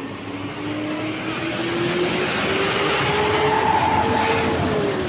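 A large bus passing close by: engine and tyre noise swell to a peak a little after the middle and then ease off. The engine note climbs steadily as the bus accelerates and drops slightly near the end as it goes past.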